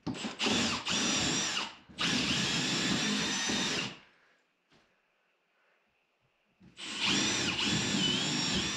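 Power drill turning a large hole saw into a pine board wall, cutting a round hole. It runs in three bursts of a few seconds each, with pauses between. The motor whine dips in pitch as the saw bites into the wood, then recovers.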